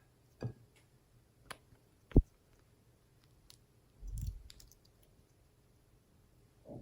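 Glossy slime being worked by hand, giving scattered sharp clicks and pops, the loudest about two seconds in, and a longer, lower squelch about four seconds in.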